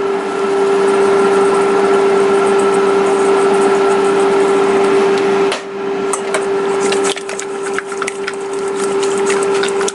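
Seasoning shaken from shakers over raw chicken wings in a stainless steel bowl, then the wings tossed by hand in the bowl with scattered small knocks and clicks from about halfway. A steady hum runs underneath.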